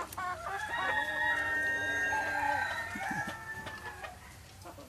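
A rooster crowing once, one long drawn-out crow that fades out about four seconds in.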